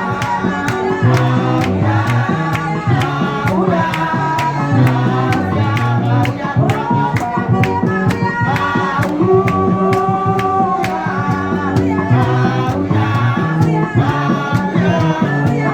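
Gospel praise music: singing voices over a band, with a steady drum beat and a bass line.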